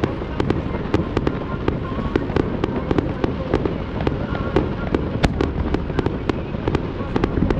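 Fireworks display: a rapid, unbroken run of sharp bangs, about four or five a second, over a steady rumble of further bursts.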